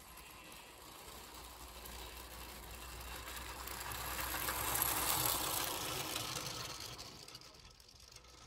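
Bassett-Lowke clockwork 4-4-0 locomotive 'Prince Charles' running past with a short train of tinplate wagons: the clockwork mechanism and the wheels on the track. It grows louder to a peak about five seconds in as the train passes, then fades as it goes away.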